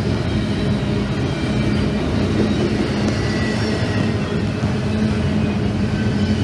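Double-stack intermodal freight train's well cars rolling past at track side: a steady, loud rumble of steel wheels on rail, with a few faint high-pitched tones over it.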